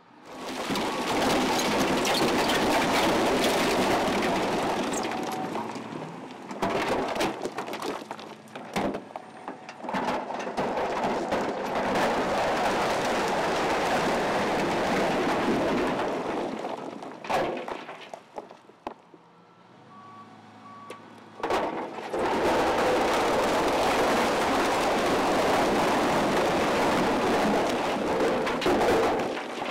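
Heavy equipment dumping rock fill into floodwater: three long rushes of tumbling, clattering rubble and splashing water, from a loader bucket and a tipping dump truck, with scattered knocks of stone in between. Diesel machinery runs underneath.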